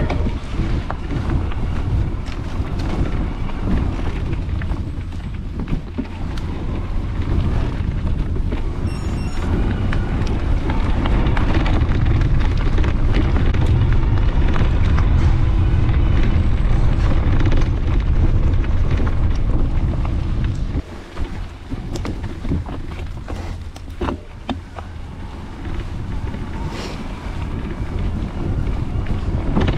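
Wind buffeting a mountain bike's handlebar-mounted camera microphone while riding, with a rushing low rumble and scattered knocks and rattles from the bike over the trail. It is loudest about halfway through, then drops suddenly about two-thirds of the way in.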